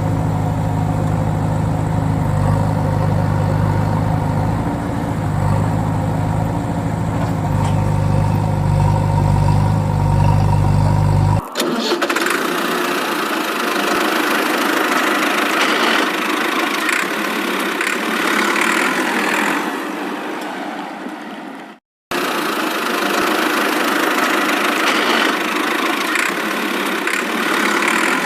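A motor running steadily with a low hum; about eleven seconds in the sound cuts abruptly to a higher, noisier running sound, which drops out for a moment near twenty-two seconds before resuming.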